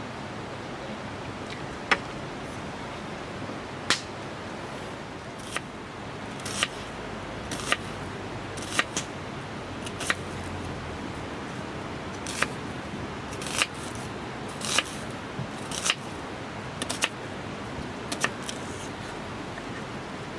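About a dozen sharp clicks, some single and some in quick pairs, at irregular intervals over a steady rushing noise.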